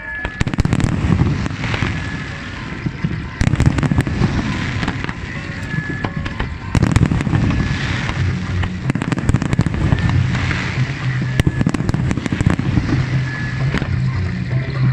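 Aerial fireworks shells bursting in a rapid barrage of overlapping bangs and crackle over a continuous low rumble, with music playing underneath. The barrage gets heavier about three and a half seconds in and again about seven seconds in.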